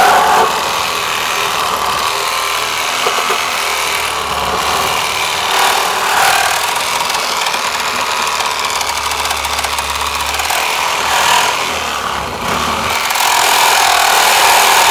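Chop saw running continuously and cutting through old wooden decking boards, some of them with hard decking screws still in them.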